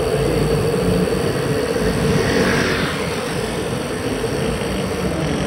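Wind rushing over a bicycle-mounted action camera's microphone while riding, mixed with tyre and road noise; a steady hum runs underneath.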